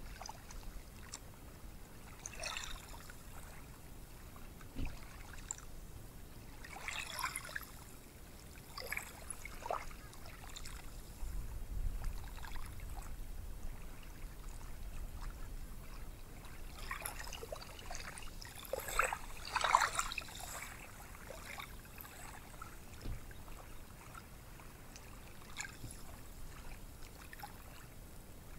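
Small ocean waves washing up a sandy beach, heard as a soft steady wash with a few fizzing, splashing surges; the loudest surge comes about two-thirds of the way in.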